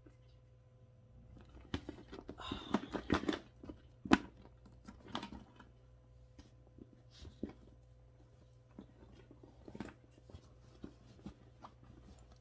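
A coated-canvas Louis Vuitton Speedy handbag being handled and moved: crackling rustles and scrapes with scattered sharp clicks, busiest two to three seconds in, the loudest click about four seconds in, then sparser.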